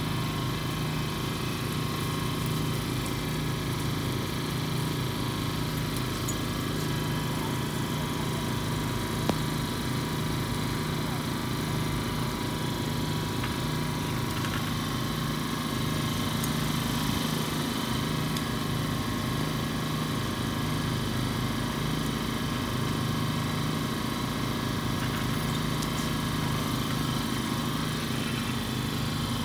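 Steady, even drone of an idling engine with a faint regular pulse, unchanging throughout; a single sharp click about nine seconds in.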